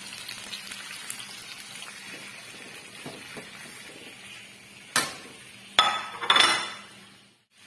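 Pork ribs frying in a nonstick pan with a steady low sizzle. About five seconds in, a couple of sharp clinks and a short louder scrape as a metal spoon goes against the pan.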